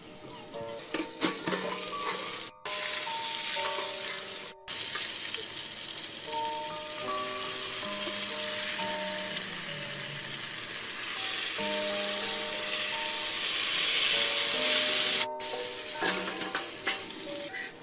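Banana-leaf-wrapped parcels sizzling in a covered steel pot over a wood fire: a steady frying hiss that grows louder for a few seconds near the end, broken by brief sudden dropouts. A simple melody of background music plays along.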